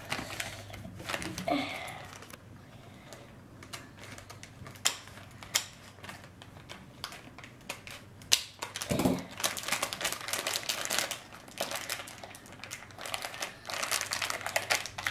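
Plastic blind-bag packet crinkling and crackling in the hands as it is squeezed and opened, in irregular bursts that grow busier in the second half.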